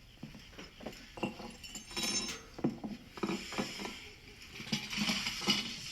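Cutlery clinking and scraping against plates and dishes, in a series of small light clicks at a meal.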